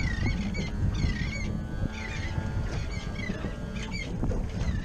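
Gulls calling over and over in short hooked cries, over a steady low rumble of wind and water.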